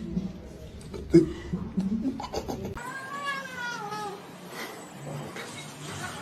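A cat meowing: one long meow that falls in pitch about three seconds in, after a few light knocks.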